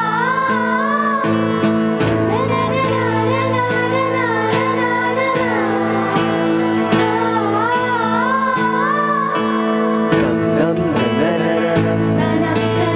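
Live acoustic band performing a Tamil film duet: female voices sing a wavering melody with vibrato in long phrases over sustained guitar and keyboard accompaniment.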